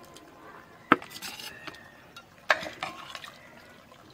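Metal serving spoon clinking and scraping against cookware while mutton curry is dished out: two sharp clinks, the first about a second in and the loudest, with softer scrapes between.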